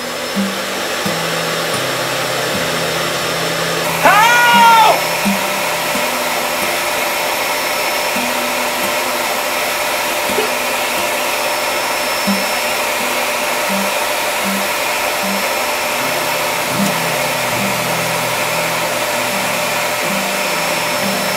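Steady whooshing, motor-like drone throughout, with short low musical notes stepping underneath and a brief rising-and-falling wail about four seconds in.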